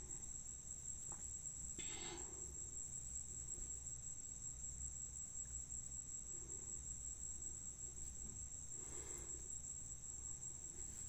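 Crickets trilling steadily in a thin, high, unbroken note, with a couple of faint, brief kitchen noises about two seconds in and again near nine seconds.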